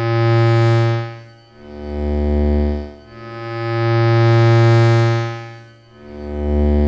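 Loudspeaker feedback played as an instrument: sustained, many-overtoned feedback tones swell and fade in waves about every two seconds over a low drone that switches back and forth between two pitches.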